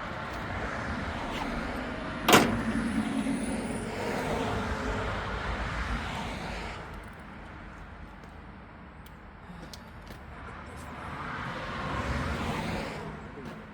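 Power drill running, drilling holes in metal, its sound swelling and fading twice, with a sharp knock about two seconds in.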